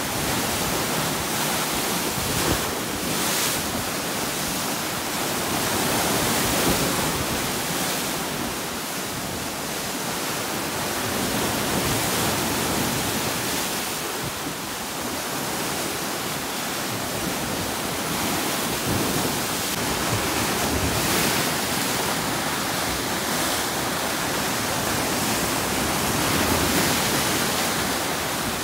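Lake waves surging against sandstone ledges and boulders and churning into white water, a steady rushing surf that swells and eases with each wave.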